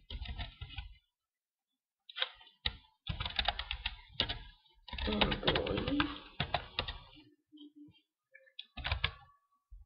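Computer keyboard being typed on: quick runs of keystrokes in several bursts, with short pauses between.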